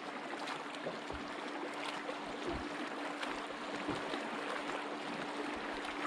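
Water lapping and splashing against a fishing boat's hull, with scattered low bumps and a steady hum underneath.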